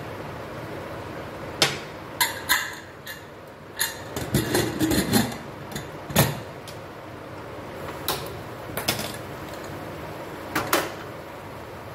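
Scattered clicks and knocks of objects being handled and set down, about a dozen, the sharpest about a second and a half in and again about six seconds in, over the steady hiss of a running fan.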